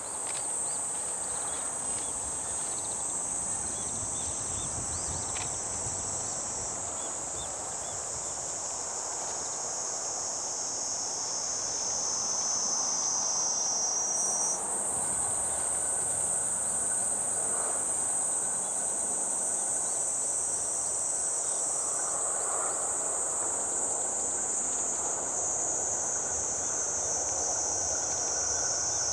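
A steady, high-pitched drone of insects calling in chorus, its pitch stepping up or down a few times, over a faint, even rushing background.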